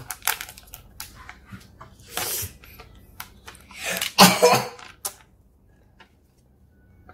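Small clicks and rustles of a new smartphone being handled and its stickers and protective film picked at, with a louder burst of noise about four seconds in.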